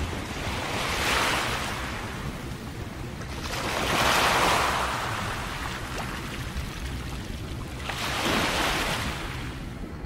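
Small waves washing against a rocky shoreline, in three surges about three to four seconds apart, the middle one loudest, over a steady low rumble.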